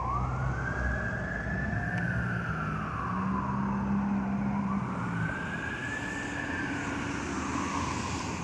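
Fire truck siren wailing as the apparatus responds. The pitch climbs quickly, holds, then slowly falls away, and this happens twice. A low steady drone runs underneath.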